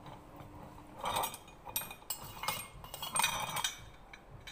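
A metal spoon clinking and scraping against a measuring cup as flour is spooned in and levelled off: a few bunches of short clinks and scrapes, from about a second in to about three and a half seconds in.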